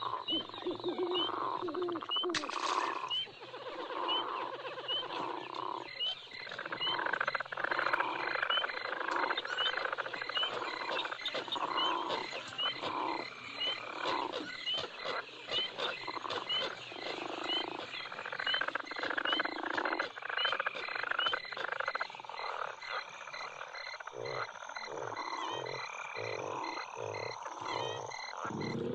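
Night bayou ambience of frogs croaking over and over, with insects chirping steadily in the background. Deeper, lower croaks come in near the end.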